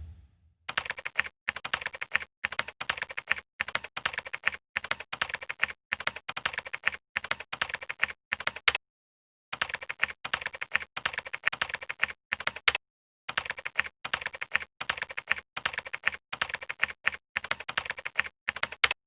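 Rapid keyboard typing: quick runs of sharp key clicks with short breaks, pausing twice for about half a second and stopping just before the end.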